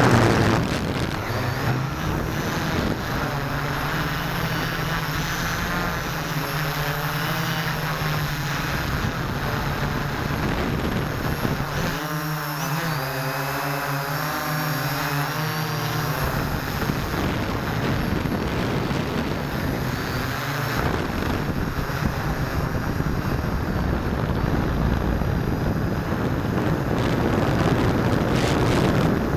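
Electric motors and propellers of a hexcopter multirotor, heard from a camera mounted on the craft: a steady buzzing drone with wind rushing over the microphone. About halfway through, the motor pitch wobbles up and down for a few seconds as the craft manoeuvres.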